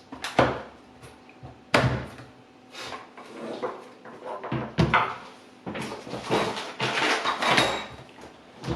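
Unboxed chainsaw parts and packaging being handled: several sharp knocks as pieces are set down on a hard surface, and a stretch of rustling and scraping in the second half.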